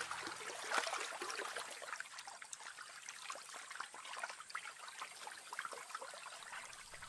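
Faint trickling and light splashing of shallow, muddy pool water: a scatter of small ticks over a soft hiss, with no steady tone.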